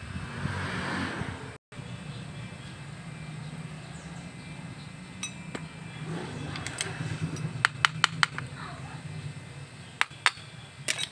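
Sharp metallic clinks and taps as tools and alternator parts are handled on the bench, some in quick clusters, over a low steady hum.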